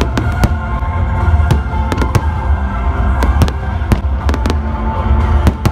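Aerial fireworks bursting, with irregular sharp bangs and crackles, over background music with sustained tones and a heavy bass.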